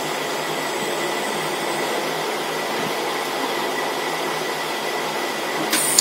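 Hot air rework station blower running with a steady whoosh of air. Near the end it turns suddenly louder and hissier, with a click.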